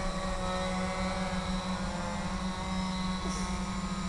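Quadcopter's electric motors and propellers running steadily in a hover: a steady buzzing hum whose pitch wavers only slightly.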